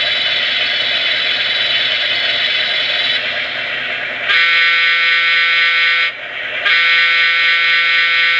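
Sound-decoder horn of an HO-scale Baldwin Centipede diesel model locomotive, played through the model's small onboard speaker. It gives a short blast about four seconds in, then a longer one a second later. Before the horn, the model's recorded diesel engines idle.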